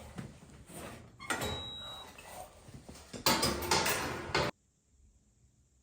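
Handling noise: two stretches of knocking and scraping, like a door or panel being moved. The sound cuts off abruptly to silence about three-quarters of the way through.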